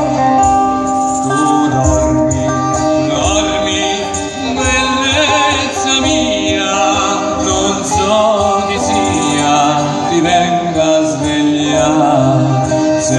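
Live folk band playing through a PA: a singing voice over guitar and accordion.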